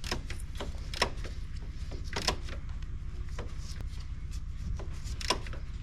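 Ratchet tightening the bolt of a new idler pulley: a few short, sharp metal clicks spread about a second apart, over a steady low hum.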